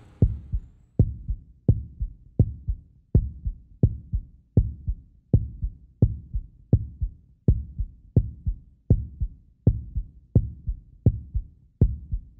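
A steady heartbeat thump, about one and a half beats a second, each beat a dull low knock that dies away quickly, dubbed in as a suspense sound effect.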